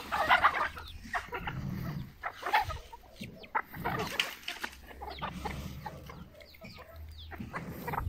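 A large flock of free-range hens clucking and calling in short, irregular bursts as they crowd around to be fed.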